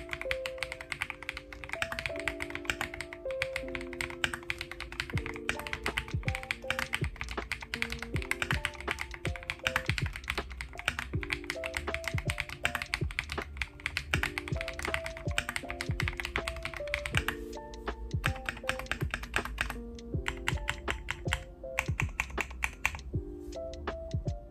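Fast typing on a Kiiboom Phantom 81 gasket-mount mechanical keyboard: a steady stream of key clacks, over soft background music.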